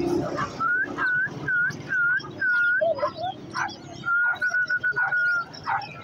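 African grey parrot whistling: a quick run of five short swooping whistles, each dipping and rising again. After a pause comes one long, steady whistle of about a second and a half with a slight flutter.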